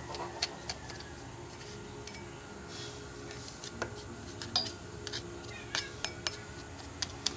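Scattered light clicks and taps of hand work inside an open sewing-machine clutch motor as crumbled clutch lining is cleared out. A few brief animal calls sound in the background.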